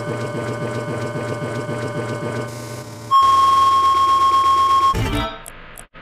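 A string of sound effects: a steady buzzing, engine-like drone, then a loud single-pitch beep held for about two seconds, then a brief low thump.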